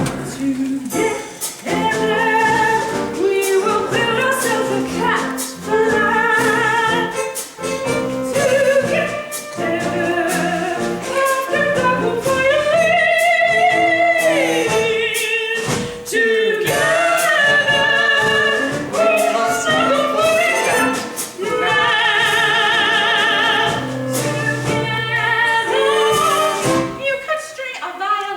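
A song from a stage musical, sung with instrumental accompaniment, the voice holding several long notes with vibrato, the longest about three-quarters of the way through.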